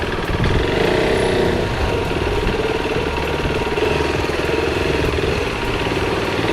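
KTM RC390's single-cylinder engine running at low revs while the motorcycle is ridden slowly, with a brief rise in revs about half a second in.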